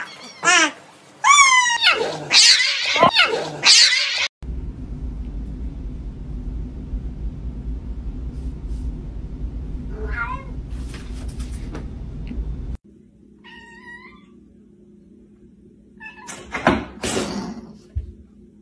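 Cat meowing and yowling: several loud, drawn-out, wavering calls in the first few seconds, then shorter single meows later. In between there is a steady low rumble, and near the end a loud sharp sound.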